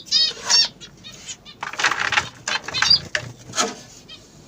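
Ornamental cage birds flapping their wings in several short flurries, with a quick run of high chirps near the start.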